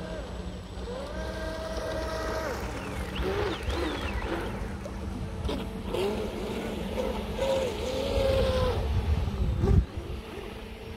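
Radio-controlled model boats' motors running on the water, their whine rising, holding and falling in pitch several times as the throttle changes, over a steady low hum. A low thump near the end.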